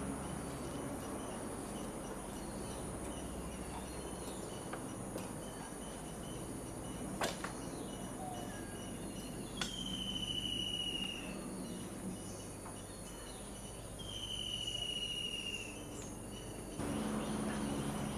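A steady high-pitched insect chorus of crickets or cicadas, with two long whistled calls that each fall slightly in pitch, a few seconds apart. A single sharp click comes about seven seconds in.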